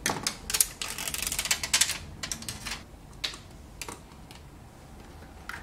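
Thin plastic liner being peeled off new screen adhesive tape, with a dense run of crackling for about the first two seconds. A few separate light clicks and taps follow.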